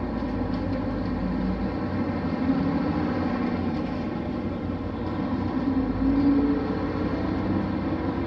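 Inside a Nissan Diesel city bus with a Fuji Heavy Industries 7E body, on the move: a steady diesel engine drone with road noise. The engine note rises and falls twice.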